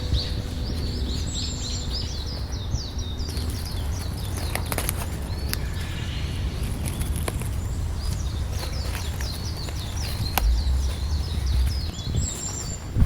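Small birds chirping in quick repeated series of short high notes, over a steady low rumble, with a few sharp clicks.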